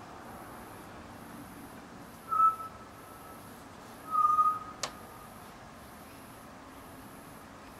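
Two short whistled notes, the second a little longer, about two seconds apart; a single sharp click follows just after the second. Underneath is a steady outdoor hiss with faint high-pitched pulses repeating about once a second.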